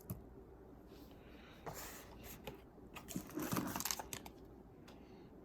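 Faint rustling and clicks of a frozen TV dinner's plastic tray and film being handled, loudest about two seconds in and again about three and a half seconds in.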